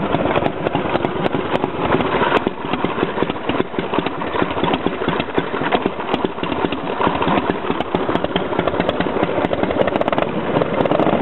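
Freshly rebuilt motorcycle engine idling steadily while still cold. Its idle slows as the choke is pushed back in.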